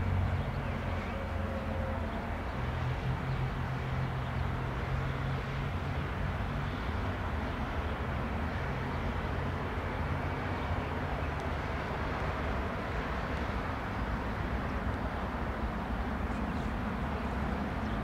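Steady low rumble of a Boeing 737-800's CFM56 jet engines on final approach to land, with outdoor background noise.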